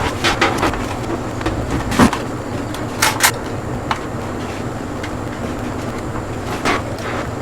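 Scattered clicks and light knocks, the loudest about two seconds in and a close pair about a second later, over a steady low hum: computer parts being handled and fitted during a PC build.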